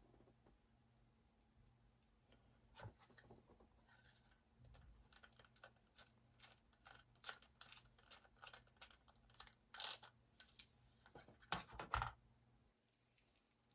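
Faint small clicks, taps and scrapes of a screwdriver and tiny screws as the SSD's drive bracket is screwed back together, irregular, with the sharpest knocks about ten and twelve seconds in.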